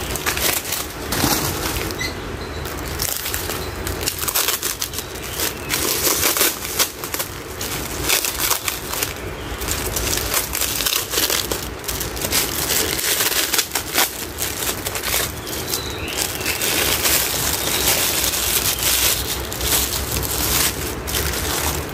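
Plant packing wrapping crinkling and crackling continuously as it is handled and pulled off a plant and its wrapped root ball by hand.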